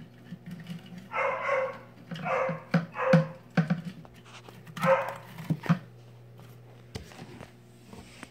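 Dog barking, about four barks in the first five seconds, followed by a few light knocks.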